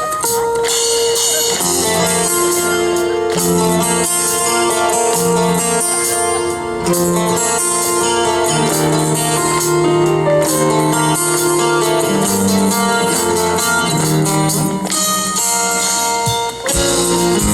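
Instrumental music from an acoustic band arrangement, led by guitar, with sustained notes over a bass line and no singing.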